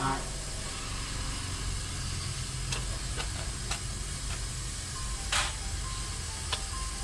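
Rubber bulb syringe suctioning a newborn puppy's nose and mouth: a few faint clicks and one short, sharp hiss of air about five and a half seconds in, over a steady background hiss.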